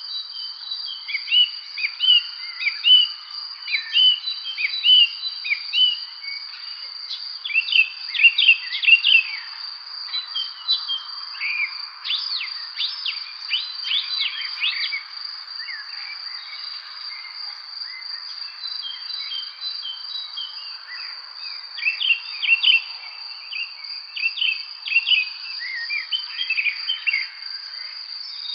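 Many small birds chirping and singing in short overlapping phrases, busiest in clusters now and then, over a continuous high-pitched insect trill and a soft background hiss.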